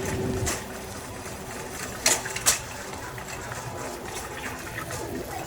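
Steady hiss of grocery-store background noise, with two sharp knocks about half a second apart a little after two seconds in.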